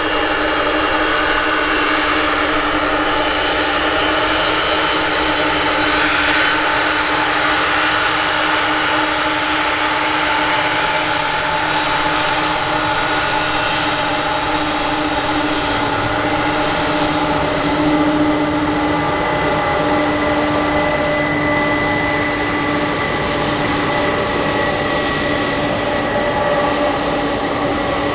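McDonnell Douglas MD-11F freighter's three turbofan engines running at low power as the jet taxis past close by: a steady jet whine made of several held tones over a rushing hiss.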